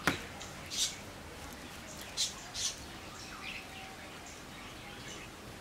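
Hands pressing and smoothing gritty bonsai soil in a cement pot: a sharp click at the start, then a few short scratchy rustles of grit under the palms.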